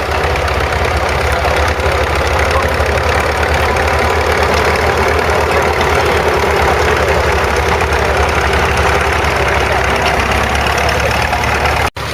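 Crawler tractor engine running steadily, with a fast low chugging under a broad mechanical clatter; the sound drops out for an instant near the end.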